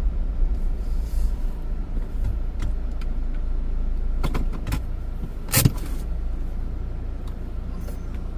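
A car's engine running steadily, heard inside the cabin, with a few clicks partway through and a louder knock about five and a half seconds in.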